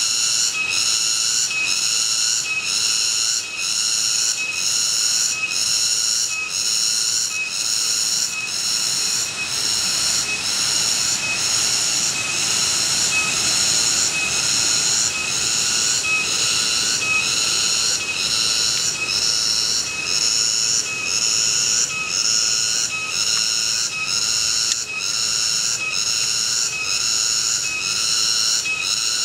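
Cicadas singing: a loud, high-pitched, continuous call that pulses regularly, about three pulses every two seconds.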